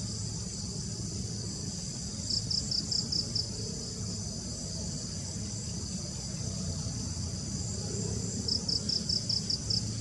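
Steady high-pitched insect chorus, with two runs of about six quick high chirps, one a couple of seconds in and one near the end.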